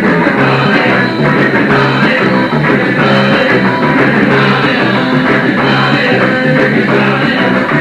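A rock band playing live on electric guitars, bass and drums, loud and continuous, on a cassette-tape recording.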